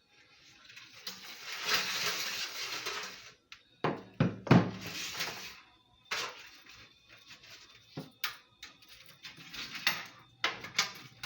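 Hands handling faucet fittings at the sink: rustling and scraping with a few sharp clinks and knocks about four seconds in, then scattered small clicks.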